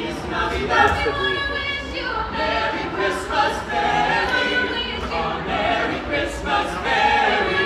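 A small mixed group of carolers singing a Christmas carol in close harmony, unaccompanied.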